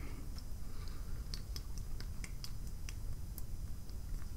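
Faint scattered small clicks and crackles of a plastic water bottle being handled and drunk from, over a low steady room hum.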